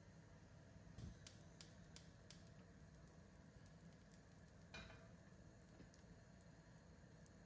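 Near silence with faint handling sounds: a soft knock about a second in, then four light clicks in quick succession, and a soft brushing sound near five seconds.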